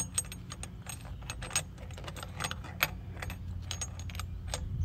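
Small metal clicks and clinks of valve spring parts and a C-clamp valve spring compressor being worked on a Ford 300 inline-six cylinder head, irregular, with a sharp click right at the start.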